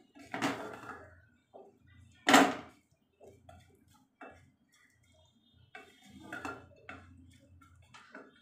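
Wooden spatula scraping and knocking against a metal pressure cooker while stirring chopped onions frying in oil, in a run of separate strokes with one loud knock about two seconds in.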